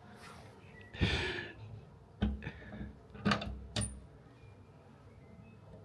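A brief scraping rustle, then three sharp knocks, the last with a short high metallic ring: someone clambering through a narrow opening and bumping against its hard edges.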